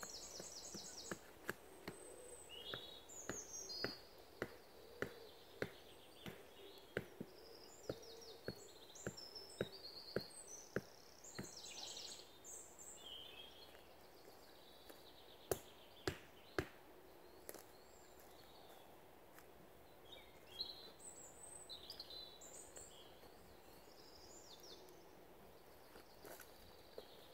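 Small birds singing and chirping in woodland. Under them, a regular series of sharp knocks, about two a second, runs for the first eleven seconds, and three more knocks come a few seconds later.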